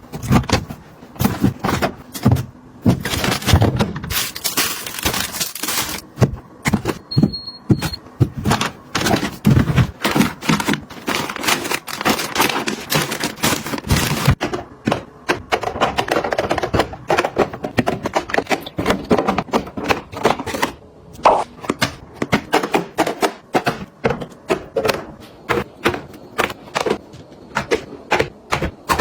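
Dense, irregular clicking, tapping and thunking of hard items, such as plastic containers and packaged goods, being handled and set down one after another while a refrigerator is restocked.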